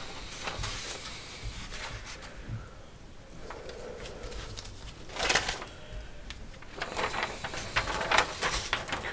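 Paper rustling as large fold-out schematic sheets in a spiral-bound manual are handled, unfolded and turned, with a louder rustle about five seconds in and a run of rustles near the end.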